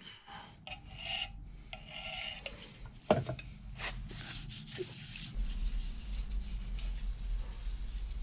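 A small thumb-pump oil can squirting oil in several short strokes onto a machined cast-iron surface, with a single knock about three seconds in. A gloved hand then rubs the oil over the metal, over a steady low hum.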